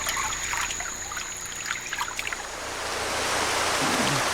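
Water trickling and splashing in small bursts, growing into a louder, fuller rush of water in the second half. Near the end a low, wavering tone comes in.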